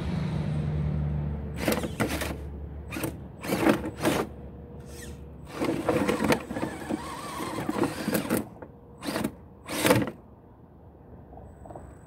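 Redcat Gen 8 RC crawler's drivetrain hum dies away, then a run of irregular sharp knocks and scrapes as the truck's body and tyres strike the rocks while it tips onto its side and is brought back upright.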